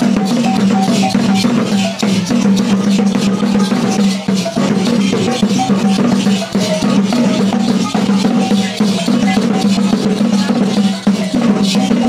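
Traditional Dayak Maanyan dance music: drums and other percussion struck in rapid, dense beats over a sustained low tone, with a short higher note repeating through it.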